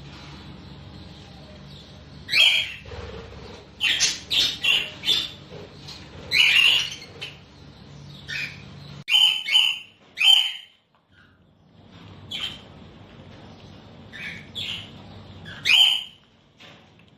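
Budgerigars calling in an aviary: many short, sharp squawks and chirps at irregular intervals, several birds overlapping at times.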